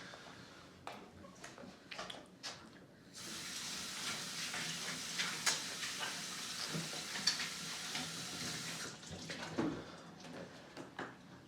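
Water running from a tap for about six seconds, starting and stopping abruptly, with scattered small clicks and knocks before and after.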